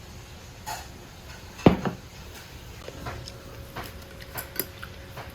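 Dishes and utensils knocking and clinking on a table: one sharp knock just under two seconds in, then a scatter of lighter clicks and clinks.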